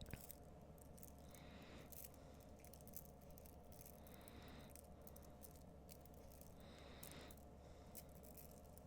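Near silence: faint room hum with a few soft rustles of handling, about a second in, around four seconds and near seven seconds.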